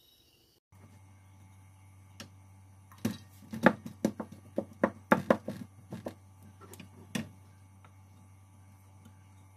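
Metal spoon knocking and scraping against a pressure cooker and a stainless steel bowl while cooked rice is scooped out: a quick run of sharp clinks from about three to seven seconds in, with a few single knocks before and after. A steady low hum runs underneath.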